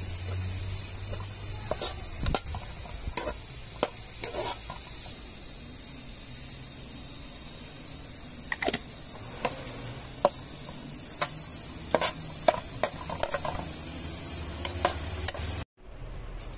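Chopped onions sizzling in hot oil in a large metal pot, with a steady hiss, while a metal spoon stirs them, scraping and clinking against the pot many times. The sizzling cuts off suddenly near the end.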